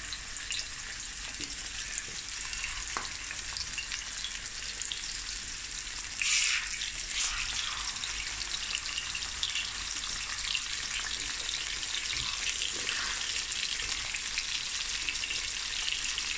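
Snoek pieces sizzling as they fry in hot oil, a steady hiss while more pieces are laid into the pan. The sizzle surges louder about six seconds in.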